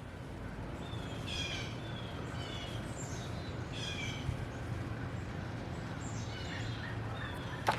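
Birds chirping in short high calls, repeated several times, over steady low outdoor background noise, with a single sharp click near the end.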